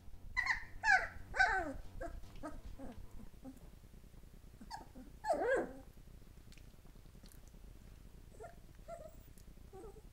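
Three-week-old puppies whimpering and yelping in high, falling squeals. There are three loud ones in the first two seconds, then a run of softer ones, another loud squeal about five and a half seconds in, and faint whimpers near the end.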